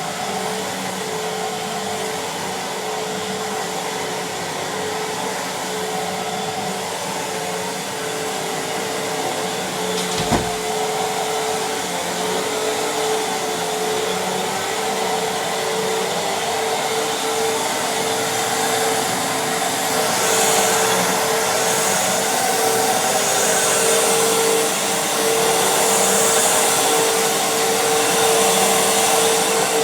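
Fantom Fury vacuum cleaner running steadily, its motor giving a constant whine over the rush of air. There is a single knock about ten seconds in. From about two-thirds of the way through, the airflow hiss grows louder and brighter.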